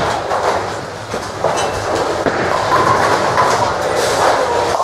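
Bowling alley din: ten-pin bowling balls rumbling down the wooden lanes and pins clattering, with scattered knocks throughout.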